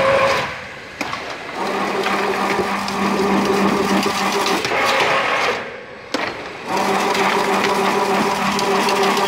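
Automatic chain link fence weaving machine running with a steady motor hum and clatter. The weaving cycle stops briefly twice, about five seconds apart, and each time picks up again with a sharp click.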